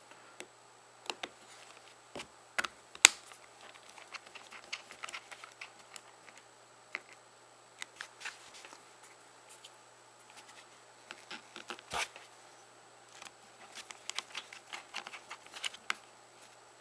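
Scattered small clicks and taps of a plastic BlackBerry 8300-series phone housing being handled while its two small screws are driven back in with a T4 screwdriver, with a sharper click about three seconds in and another near twelve seconds.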